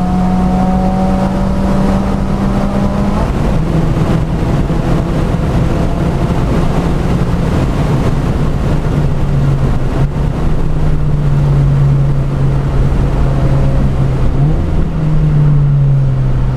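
A stage 2 modified 2015 Subaru WRX's turbocharged flat-four engine running hard on track, heard from inside the cabin, its note held fairly steady, easing lower through the middle and climbing again near the end, over steady road and tyre noise on the wet surface.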